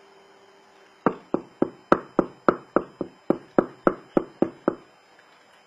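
A quick, even series of about fourteen sharp taps, roughly three and a half a second, starting about a second in and stopping shortly before the end.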